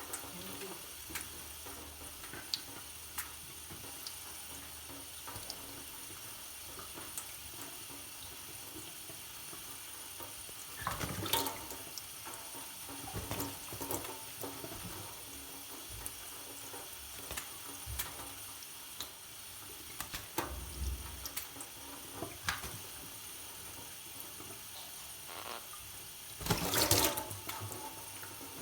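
Water running steadily from a tap during a monk parakeet's bath, with scattered splashes and two louder bursts of splashing, about a third of the way in and near the end.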